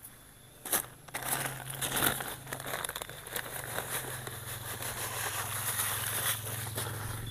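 Fine, dry planting medium being poured onto a bonsai ground bed to cover the soil surface, a continuous rustling hiss starting about a second in, just after a sharp click. A steady low hum runs underneath.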